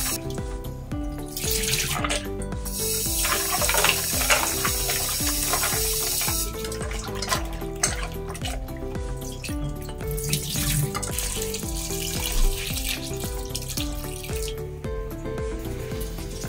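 Water from a kitchen tap running and splashing into a steel bowl of mushrooms in a stainless steel sink as they are rinsed by hand, the splashing coming and going. Background music with a repeating melody plays throughout.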